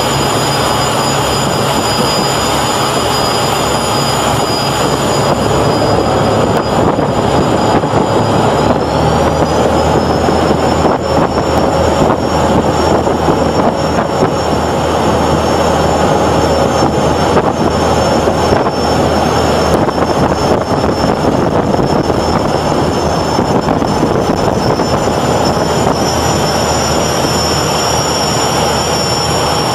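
A Swedish T56-class torpedo boat's CRM 18DSS turbocharged diesels running flat out at about 37 knots, heard from the open aft deck over rushing wind and wake. A steady high whine rides over the engine drone and rises in pitch about nine seconds in, as the engines pull harder.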